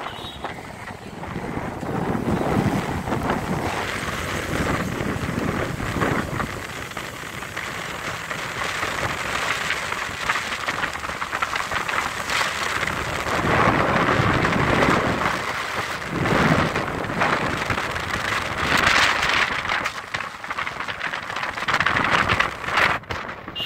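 Wind buffeting the microphone over the road and engine noise of an open-backed jeep driving along, swelling louder in gusts a few times.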